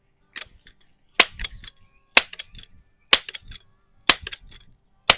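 Multi-pump pneumatic air rifle being pumped up: six sharp clacks of the pump lever about once a second, each followed by a few lighter clicks.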